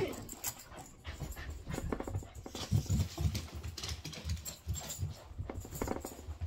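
Labradoodle close by making soft dog sounds, mixed with rustling and clicking as a nylon puffer jacket is handled and zipped.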